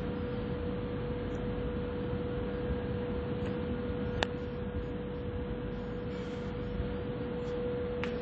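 A steady machine hum with a constant mid-pitched tone over a low rumble, and a single sharp click about four seconds in.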